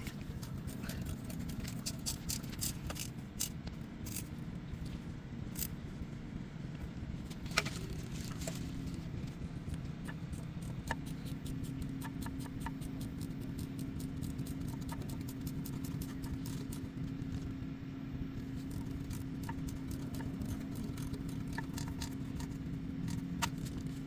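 Hand tools and bolts clicking, tapping and rattling against metal as bolts are fitted to the engine, with a louder knock about seven seconds in, over a steady low hum.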